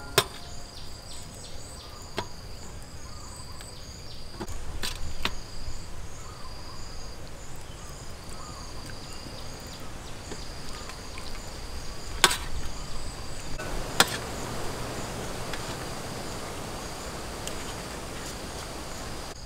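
A metal spoon clinking and scraping on a stainless steel tray a handful of times as cooked fish is picked off the bones, with insects chirping steadily in the background.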